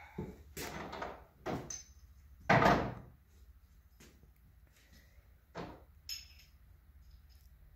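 A pickup truck's tailgate dropping open with one loud clunk about two and a half seconds in, amid lighter knocks and a few small rattles.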